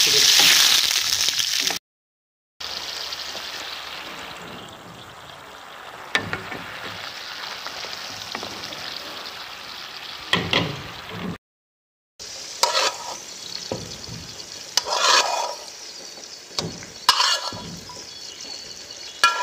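Whole garlic cloves and shallots frying in hot oil in a wok, sizzling, loud at first and then settling to a softer hiss. A wooden spatula stirs and scrapes against the pan, giving short scrapes and knocks, more of them in the second half.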